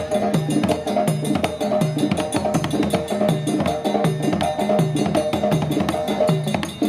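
Music with a steady rhythm: a repeating pattern of low pitched notes over sharp percussion clicks.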